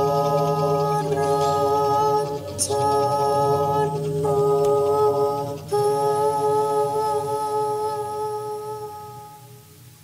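Slow vocal music with long held notes, the pitch changing every one to two seconds, fading out over the last couple of seconds.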